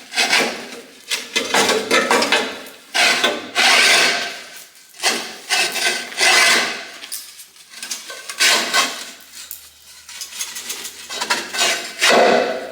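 Rough metal-on-metal scraping in repeated strokes of uneven length, as a loosened steel fire tube is worked out through a traction engine boiler's tube plate.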